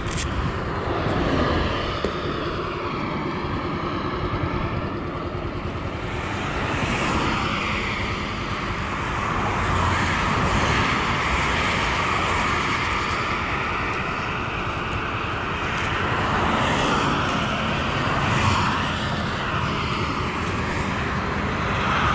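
Highway traffic passing close by, vehicles swelling and fading one after another, several with a falling pitch as they go past.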